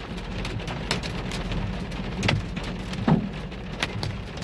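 Hailstones and heavy rain pelting a vehicle, heard from inside it: a steady rush of rain with sharp, irregular knocks of hail striking the body, the loudest strike about three seconds in.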